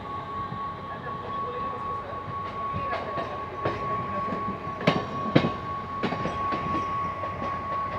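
Mumbai suburban electric local train running along the track, heard from its open doorway: steady wheel and rail noise with a constant high whine. In the middle come a few sharp clacks of the wheels over the track, the two loudest about five seconds in.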